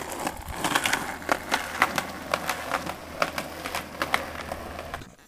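Running footsteps on a concrete sidewalk: a quick, uneven series of light taps that dies away just before the end.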